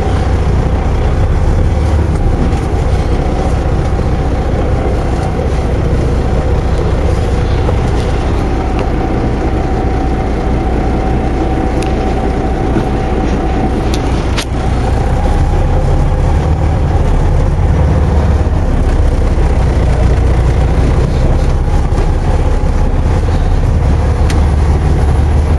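Diesel engine of a semi-truck tractor running steadily, heard from inside the cab as the truck drives slowly, with a brief knock a little past halfway; the engine is slightly louder after it.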